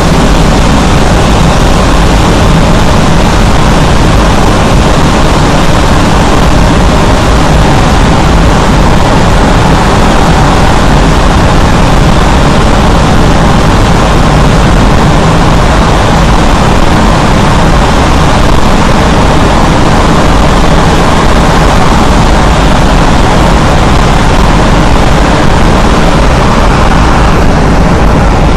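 Steady, loud drone of a vehicle's engine and tyres driving through a highway road tunnel, with the noise of surrounding traffic.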